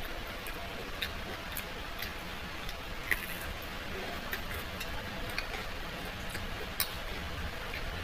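Scattered small clicks and ticks at an irregular pace over a steady hiss, with a sharper click about three seconds in and another near seven seconds.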